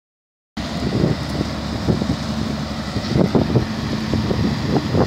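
Steady low diesel rumble of a small tugboat working alongside a river ferry barge, with wind buffeting the microphone. The sound comes in about half a second in.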